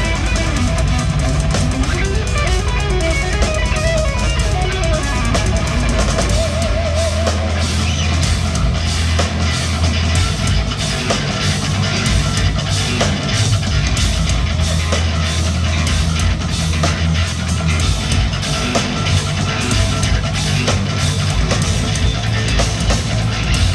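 Live instrumental progressive metal on eight-string electric guitars and a drum kit. A melodic guitar line with sliding notes opens. About six seconds in the full band comes in with a heavy low end and dense drumming.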